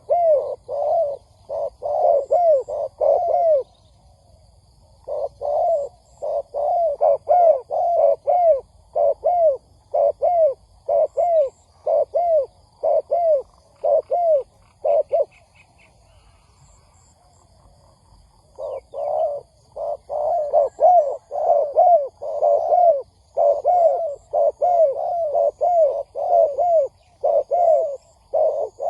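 Spotted doves cooing: quick runs of short, rising-and-falling coos repeated over and over, with two breaks, one near the start and a longer one midway. Faint high chirps of small birds sound behind them.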